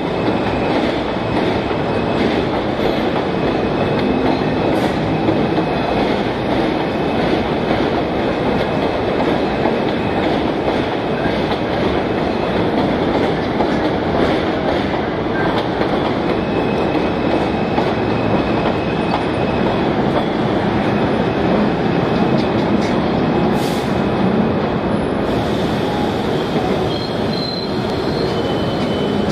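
Subway train moving on the elevated station tracks: a loud, steady rumble of steel wheels on rail with thin, high wheel squeals at times.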